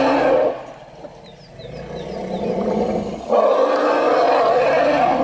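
Elephant calls, long and noisy, as adult elephants face off against hyenas threatening their calf: one call fades out about half a second in and a second begins near three and a half seconds.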